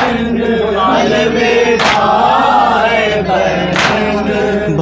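Group of men chanting a mourning noha in chorus, with a sharp slap of hands beating chests (matam) in unison about every two seconds.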